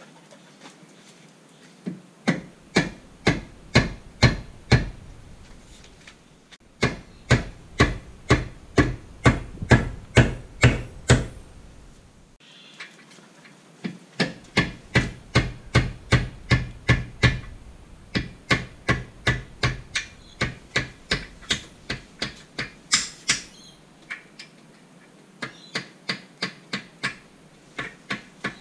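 Mallet hammering the trim ram pivot pin out through a MerCruiser Bravo II stern drive: runs of sharp, even blows, about two to three a second, broken by short pauses.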